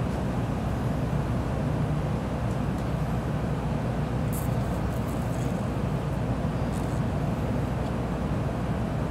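Steady low rumble of a Kyushu Shinkansen Sakura train running, heard inside the passenger cabin, with a few faint ticks about halfway through.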